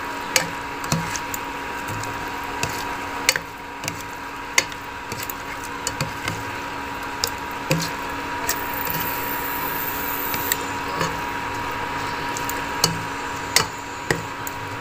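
Chicken intestine adobo sizzling in a nonstick pot while a plastic spatula stirs it, with irregular sharp clicks and knocks of the spatula against the pan. A steady hum from the induction cooktop runs underneath.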